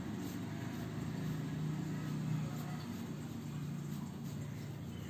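A steady low hum, with faint scratching of a felt-tip sketch pen colouring on paper.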